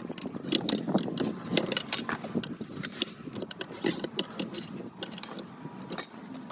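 Metal hand tools clinking and knocking irregularly, a quick run of sharp metallic clicks with now and then a short ring, as a tractor tyre is worked on and off its rim by hand.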